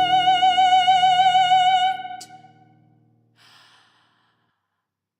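Soprano holding a high note with wide vibrato over low, steady electronic tones. The note and the tones stop with a click about two seconds in, and a short breathy sigh follows.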